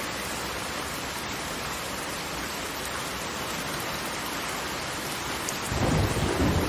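Steady hiss of falling water, with a deep, uneven rumble swelling in near the end.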